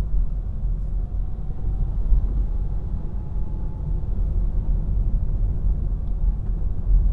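Car driving slowly, a steady low rumble of engine and road noise heard from inside the cabin.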